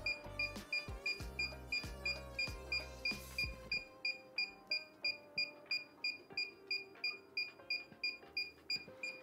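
DJI FPV remote controller beeping steadily in linking mode while it searches for the drone: short, identical high beeps, about three a second. Background music plays underneath.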